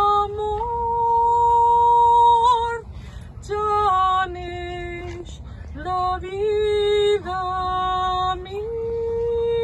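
A woman singing solo and unaccompanied: a slow melody of long held notes, with short breaks for breath, ending on a long sustained note.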